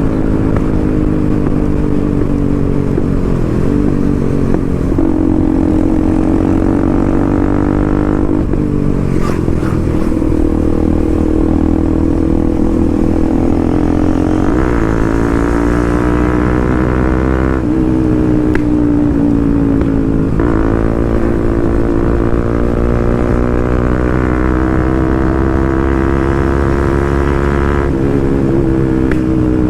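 Single-cylinder Bajaj Pulsar NS200 engine riding along with the dB killer taken out of its exhaust. The engine note climbs steadily and then drops sharply several times as the rider shifts up and eases off the throttle.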